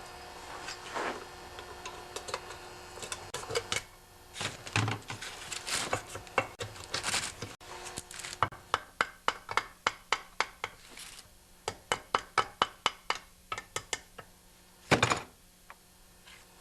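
Metal knocks, scrapes and clinks of hand tools working the cover off a Tecumseh 10 hp engine's crankcase, with a run of evenly spaced clicks about two to three a second in the middle and one louder knock near the end.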